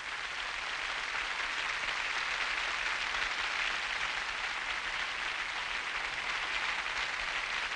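Large congress audience applauding steadily, a dense unbroken clatter of many hands clapping.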